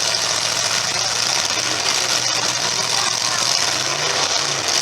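Demolition derby cars' engines running steadily under a loud, hissy wash of arena noise.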